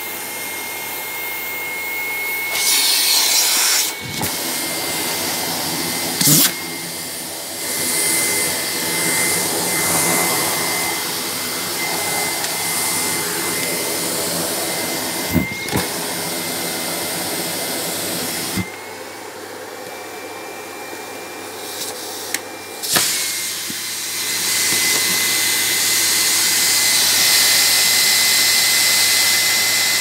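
Canister vacuum cleaner running with a steady high whine while socks and a T-shirt are sucked up its hose. Its loudness shifts as the fabric goes in, with several sharp knocks and pops, and for a few seconds in the middle it goes quieter while the whine rises a little.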